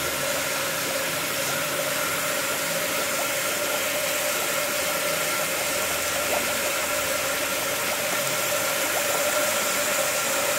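Microbubble generator running: water and air jetting from a venturi outlet into a foaming tank, a steady rushing hiss with a constant hum from the pump.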